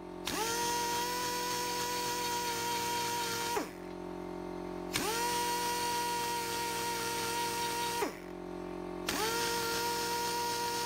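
Air-powered die grinder run at about 20 psi, spinning a round double-cut burr lubricated with WD-40 against the cylinder head's port walls to texture them. It gives a steady whine in three runs, each spinning up at the start and winding down with a falling pitch when released, with a steady low hum between runs.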